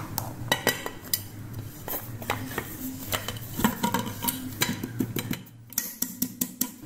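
Aluminium cake tin and a plate clinking and knocking as the tin, with the baked cake inside, is turned upside down onto the plate, then a quick run of taps near the end on the tin's base to release the cake.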